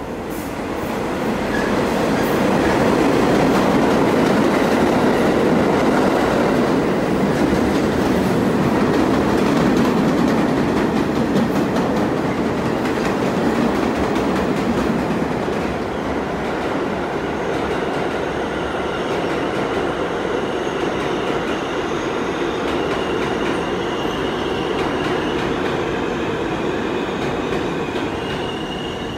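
New York City subway train running along the far track through the station, a loud rumble that builds over the first couple of seconds and eases after about 15 s. From about 18 s on, thin high-pitched squealing tones from steel wheels on the rails sound over the rumble.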